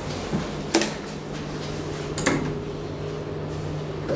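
Door clunks and clatter on a 1974 DEVE hydraulic elevator, two sharp knocks standing out, one just under a second in and one a little past two seconds in, over a steady low hum from the elevator machinery.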